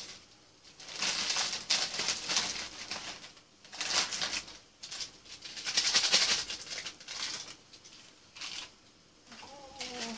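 Crinkling of a plastic instant-noodle packet being handled, in several rustling bursts with short pauses between.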